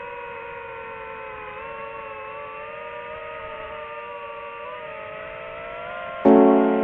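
DJI FPV drone's motors and propellers whining steadily, the pitch wavering slightly up and down. Near the end, a loud piano chord of background music cuts in suddenly.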